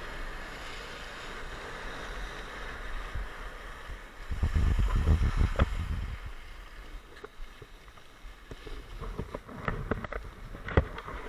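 Skis hissing steadily over packed snow, then a loud rough scrape for about two seconds as the skier brakes to a stop. After that, scattered light clicks and clacks of skis and poles knocking together in a lift queue.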